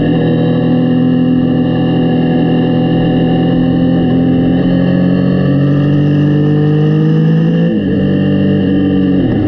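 Yamaha Tracer 900's three-cylinder engine running hard under load, its pitch climbing slowly. The revs dip sharply twice, once near the end.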